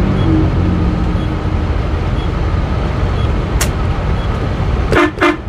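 Steady engine and road rumble inside a passenger vehicle's cab on the highway, with one sharp click about three and a half seconds in and two short, loud blasts close together near the end.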